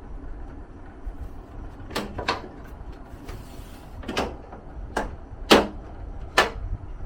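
Six sharp knocks or clicks at uneven intervals over a low steady rumble, the loudest a little past halfway.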